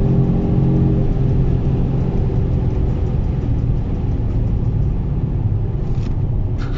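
Mercedes-AMG GT43's 3.0-litre turbocharged straight-six driving, its pitched engine note fading about a second in and leaving a steady low rumble of engine and road noise. A couple of short clicks come near the end.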